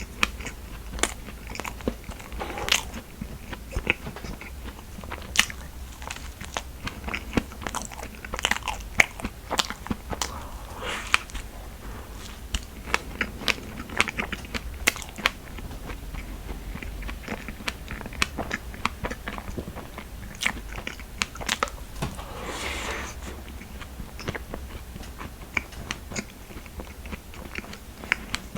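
Close-miked eating: a person chewing and biting food, with frequent small crisp clicks and crunches.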